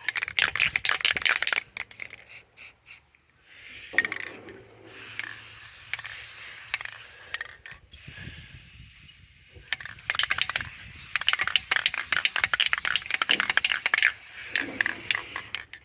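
Aerosol spray paint can hissing in bursts, with runs of fast clicking rattle from the can's mixing ball as it is shaken between sprays.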